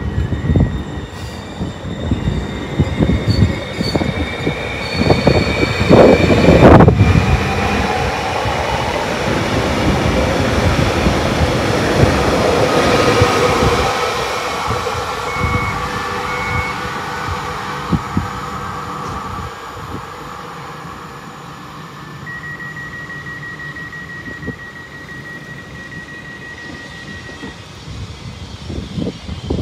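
Koleje Mazowieckie Stadler FLIRT electric multiple units moving through the station. Wheels clatter over rail joints and points, heaviest about six to seven seconds in, under a rising electric traction whine that fades after about fourteen seconds. Later a steady high tone sounds for about five seconds.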